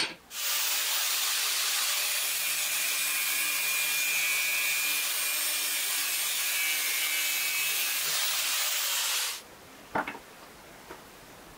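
Metabo angle grinder cutting through a small metal clamp: a steady grinding hiss that lasts about nine seconds and cuts off abruptly. A sharp click comes just before it, and a few light knocks follow.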